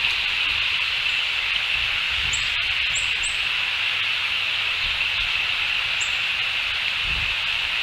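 Outdoor ambience around an eagle nest: a steady high-pitched hiss of background chorus, with four short high chirps from small birds, three of them close together after about two seconds and one more near six seconds, over a low rumble.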